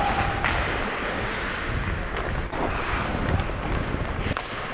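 Wind rushing over the microphone of a camera worn by a skating ice hockey player, a steady buffeting noise, with two sharp clacks, one about half a second in and one near the end.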